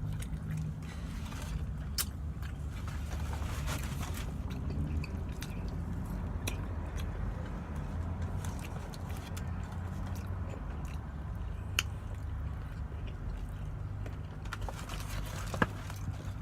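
Close-miked chewing and mouth smacking of someone eating fried chicken, with scattered wet clicks and a few sharper ones, over a steady low background rumble.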